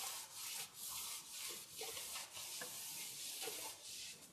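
Quick swishing strokes repeated about three times a second, made by hand while mixing a liquid plant-fertilizer solution.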